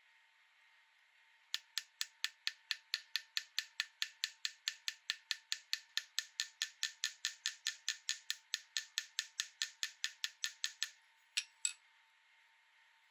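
Small hammer tapping steadily on a small silver bike-chain link held on a steel bench block, about four or five light metallic taps a second, setting the link's pins. The run of taps stops, then two last taps follow near the end.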